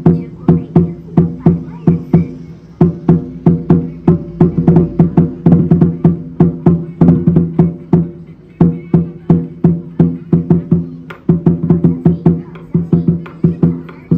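Chinese lion dance drum beaten in a steady, fast rhythm of about three strokes a second, each stroke a deep ringing boom, with a couple of short breaks where the pattern shifts.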